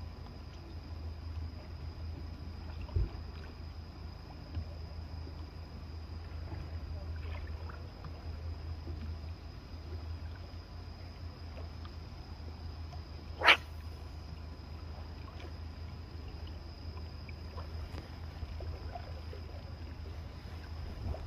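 Still harbour ambience at night: a steady low rumble with a thin, steady high whine over it. There is a dull thump about three seconds in, and one sharp click about halfway through, which is the loudest sound.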